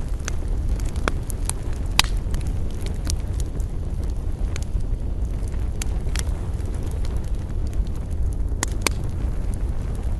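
Campfire burning with irregular sharp crackles and pops over a steady low rumble.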